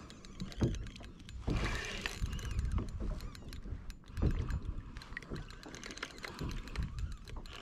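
Fishing reel clicking and grinding as line is worked on a hooked mahi-mahi, many quick clicks over a low rumble.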